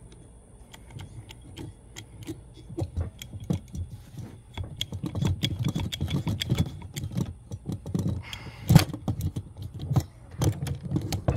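Irregular metallic clicks and clanks of a hydraulic lug crimping press being worked to crimp a sleeve onto the winch cable, with one sharp, louder knock almost nine seconds in.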